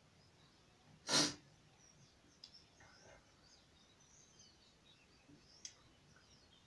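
A man's single short, sharp breath forced out about a second in, while he swallows a long cloth strip in vastra dhauti, the yogic cloth-swallowing cleanse. A few faint small clicks follow.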